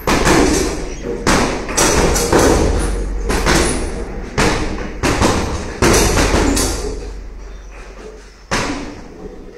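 Gloved punches landing on a hanging heavy punching bag: about nine heavy thuds at uneven intervals, each trailing a long echo, with a pause of a couple of seconds before the last blow near the end.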